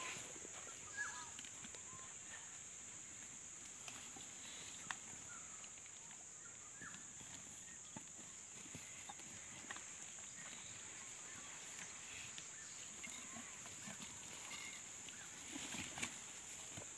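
Komodo dragons feeding together on a deer carcass: scattered soft knocks, rips and scuffs as they tear at the meat, with a louder scuffle near the end. A steady high-pitched hiss runs underneath.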